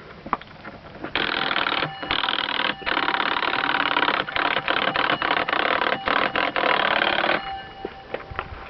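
Electric doorbell ringing in long bursts broken by brief pauses, starting about a second in and stopping shortly before the end.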